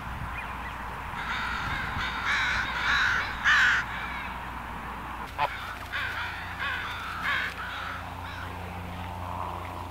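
Canada geese calling with harsh honks in two runs, one from about a second in to four seconds, the loudest near three and a half seconds, and another around six to seven and a half seconds. A single sharp click comes about five and a half seconds in.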